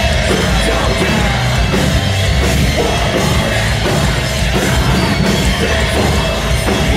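Live metalcore band playing loud and without a break: distorted electric guitars and drums, with a vocalist yelling over them.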